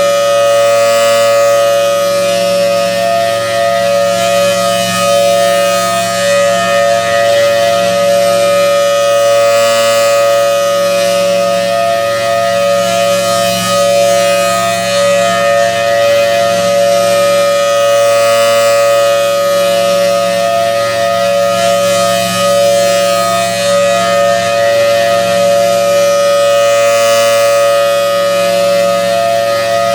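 Federal Signal Thunderbolt 1000T rotating outdoor warning siren sounding its steady alert signal, a loud held two-note chord. The rotating head makes the sound swell and fade about every eight to nine seconds, three times here.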